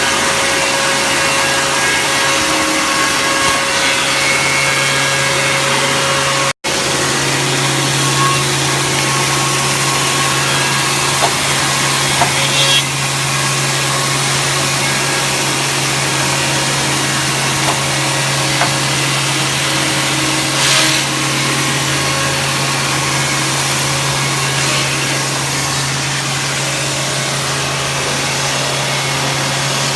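Wood line sanding machine running: a steady motor hum under the rushing noise of the sanding heads on wood. The sound cuts out for an instant about six seconds in, and a few light knocks come later.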